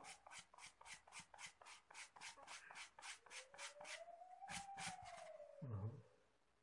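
Sandpaper wrapped on a stick rubbing back and forth on a rubber bicycle inner tube, in quick regular strokes about five a second that thin out past halfway. It is roughening the rubber around the puncture so the patch glue will hold.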